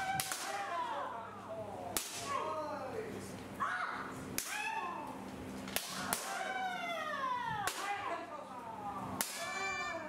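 Kendo practice: bamboo shinai striking armour with several sharp cracks, amid overlapping high-pitched kiai shouts that slide down in pitch.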